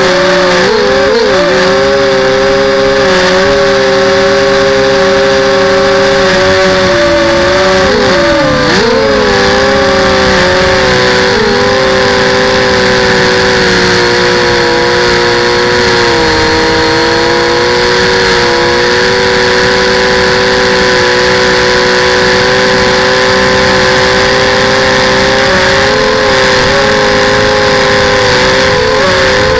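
FPV drone's electric motors and propellers whining loudly, heard from the camera on the drone itself. Several close tones rise and fall in pitch together as the throttle changes, with marked dips about 8 seconds in and again around 16 seconds, over steady rushing hiss.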